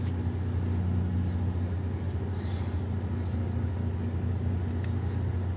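A steady low hum with no change in pitch or level, with a faint click near the start and another about five seconds in.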